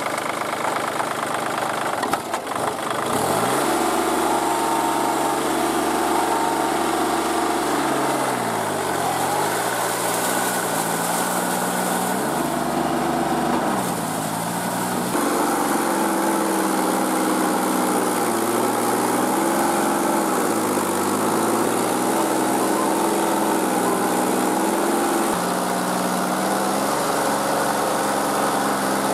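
Kubota L3408 tractor's diesel engine running steadily while it drives a rotary tiller through a flooded paddy field. Its pitch sags and recovers several times as the load changes.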